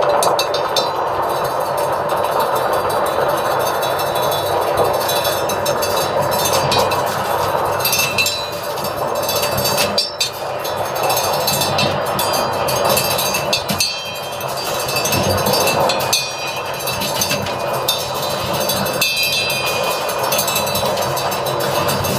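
Live noise music: a dense, continuous wall of electronic noise with free-improvised drumming, scattered sharp drum and cymbal hits cutting through it.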